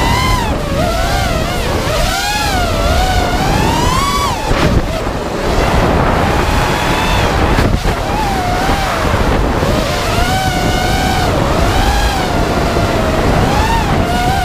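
FPV quadcopter's brushless motors and propellers whining, the pitch rising and falling over and over as the throttle changes, with wind rushing over the onboard camera's microphone.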